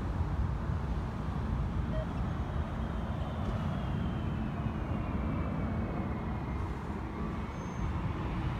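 Four-engine C-17A Globemaster III's turbofans on landing approach: a steady low rumble with a faint high whine that slowly falls in pitch.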